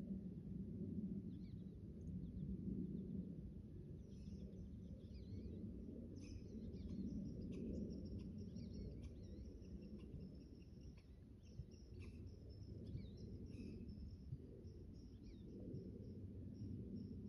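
Faint small-bird chirps, starting about four seconds in and repeating over a steady low background rumble.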